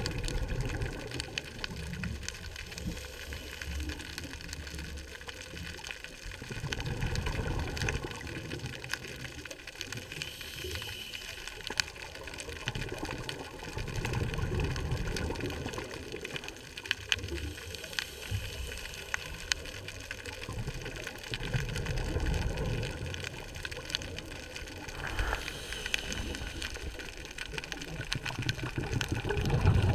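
Underwater sound picked up through a camera's waterproof housing: a muffled rushing, with low rumbles swelling and fading about every seven seconds, and scattered small clicks.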